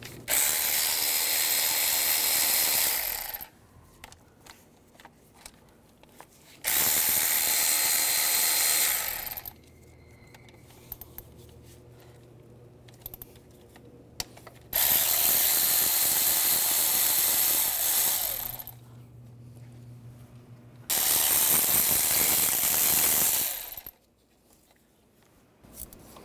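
Cordless electric ratchet with a 10 mm socket, spinning exhaust manifold nuts off their studs. It runs in four separate bursts of about three seconds each, one nut at a time.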